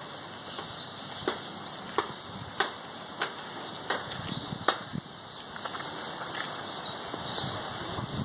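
Six sharp knocks or taps in a steady rhythm, about two-thirds of a second apart, stopping about five seconds in. Faint high bird chirps come through in the second half.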